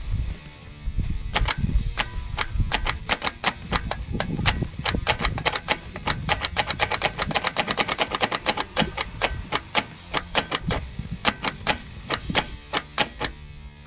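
Rapid, irregular metallic clicking, several clicks a second, from hand-tool work on a loose Mopar starter motor.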